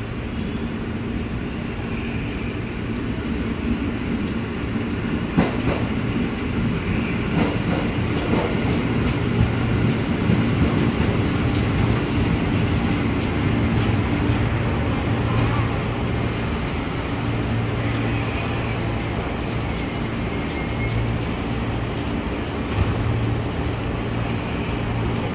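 Electric commuter train pulling in beside the platform, a steady low hum that grows louder over the first ten seconds and then holds. About halfway through comes a row of short high-pitched squeals as it slows.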